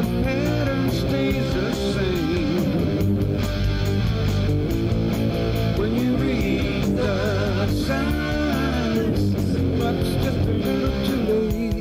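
Rock music instrumental passage: a guitar plays a lead line whose notes bend and waver in pitch, over a steady, continuous backing.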